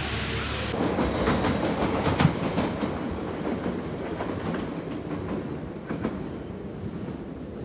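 A train rolling on rails, its wheels clattering over rail joints in a run of irregular sharp clacks that thin out and fade as it moves away. It is preceded by a brief steady hiss.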